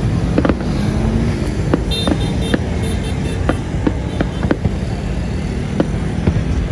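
Steady low outdoor rumble, likely traffic, with sharp pops scattered throughout, typical of distant fireworks going off, and a short run of high beeping tones about two seconds in.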